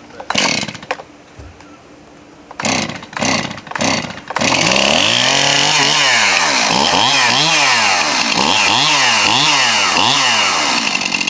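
Two-stroke chainsaw started with a few pulls of the starter cord, catching about four seconds in, then revved up and down again and again with a new, sharpened chain on the bar.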